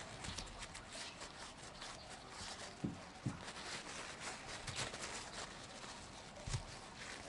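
Paper tissue crinkling and rustling as it is rubbed in the hands to wipe a small part clean. There are three soft low knocks, two close together near the middle and one near the end.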